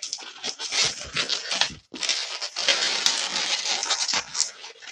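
Latex 260 modelling balloons squeaking and rubbing against each other and the fingers as they are twisted and locked together, in quick irregular scrapes with a brief pause just before two seconds in.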